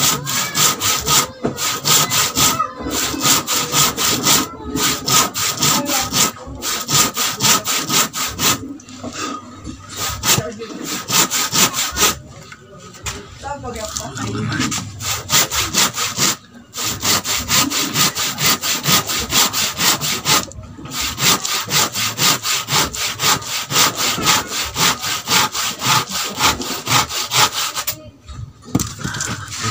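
Hand saw cutting through a wooden plank: quick back-and-forth strokes, several a second, in runs broken by short pauses every few seconds, stopping shortly before the end.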